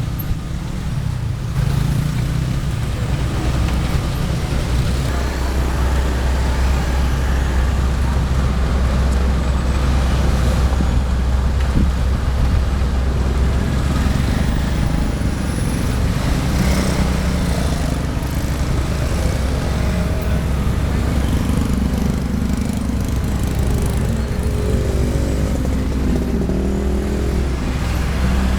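Diesel engines of an asphalt paver and dump truck running steadily, a deep continuous drone.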